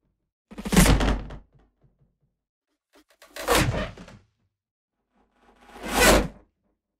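Three whoosh sound effects in a row, spaced about two and a half seconds apart. Each is a quick swell of rushing air lasting about a second, with a low boom underneath, rising and then dying away.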